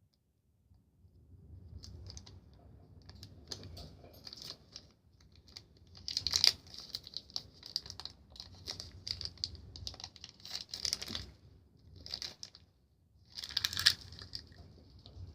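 Crinkly plastic Shopkins blind bag being handled and pulled at to tear it open: irregular crackling and rustling, with louder bursts about six seconds in and near the end.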